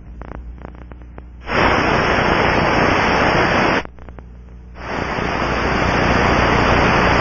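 Ultraprobe ultrasonic detector's headphone output from a contact probe on a hydraulic valve: a steady rushing hiss that comes on about a second and a half in, stops for about a second, then comes back and holds. These are reference readings taken on good valves to set a standard.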